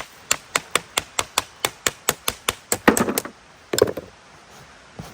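Rapid light tapping on the seized, corroded chain of an old Makita DCS 341 chainsaw, done to work it loose. The taps come about five a second for roughly three seconds, followed by a couple of heavier knocks.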